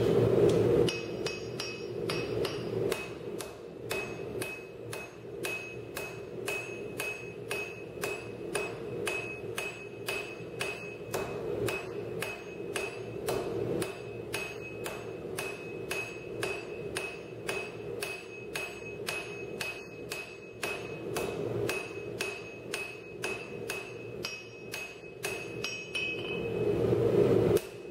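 Hand hammer striking a red-hot steel bar held in tongs on an anvil, a steady run of about three blows a second, each with a bright anvil ring, as the bar is forged into a post vise spring. A steady low hum runs underneath, louder at the start and near the end.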